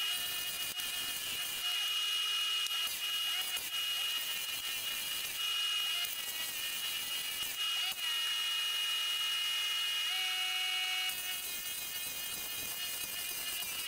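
Wood lathe running while a flat chisel cuts the spinning wooden spindle: a steady high whine under the hiss of the cut, the cutting noise shifting in level as the tool moves along the rest.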